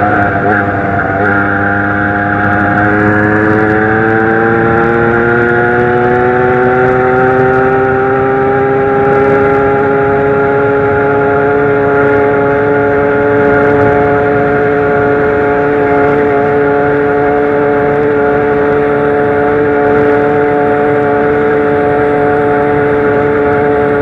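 Zanella 70cc two-stroke moped engine running under load on the move. Its note dips just after the start, then climbs slowly for about eight seconds and holds steady at high revs.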